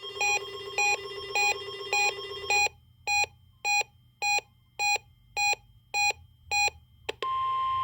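Weather radio alert signal. Electronic alarm beeps repeat about one and a half times a second, with a low steady tone under the first few beeps. About seven seconds in, the steady single-pitch NOAA Weather Radio warning alarm tone near 1 kHz begins.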